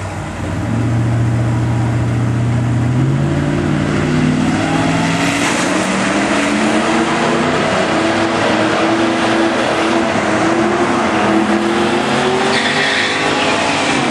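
Ford Lightning pickup's V8 at full throttle on a drag-strip launch, loud, its engine note climbing in pitch in several steps as it pulls away down the track. Another car runs alongside it.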